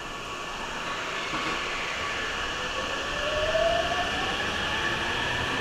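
Hankyu 8000 series electric train running, with a steady rail noise that grows slightly louder. About halfway through, a whine from the motors rises in pitch as the train picks up speed.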